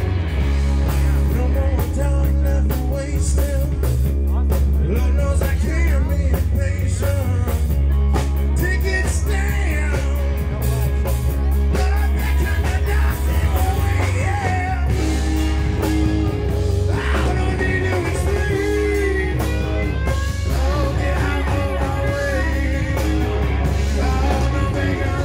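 Live blues-rock band playing: electric guitar, electric bass and drums, over a heavy, steady bass line, with a melodic line bending in pitch above it.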